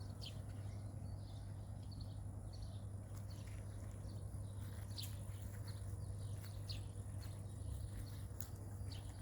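Faint outdoor ambience: birds chirping in short, quick calls every second or so, over a steady high hum and a low steady rumble.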